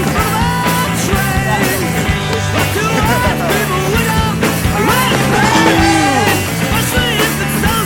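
Loud rock music with a singing voice over bass and drums.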